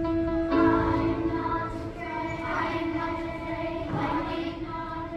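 Children's chorus singing together in long held notes, the full choir coming in about half a second in.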